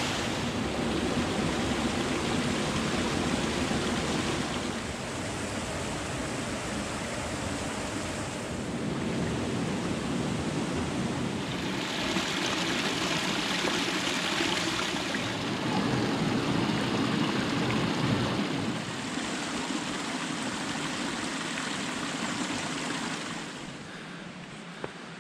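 A stream rushing over limestone: a small waterfall pouring into a pool, then water splashing down a cascade of rock steps, the rushing changing its character every few seconds. Near the end it drops off to a much quieter background.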